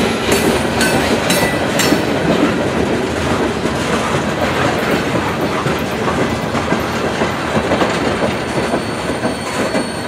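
Loaded coal hopper cars rolling past, their wheels clicking over the rail joints with a brief wheel squeal in the first couple of seconds. The rolling rumble eases slightly near the end as the last car goes by.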